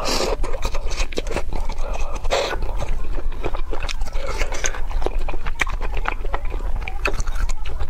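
Close-miked eating of soup with cellophane noodles and eggs: wet chewing and many small mouth clicks, with two short noisy slurps near the start and about two and a half seconds in. A low steady hum sits underneath.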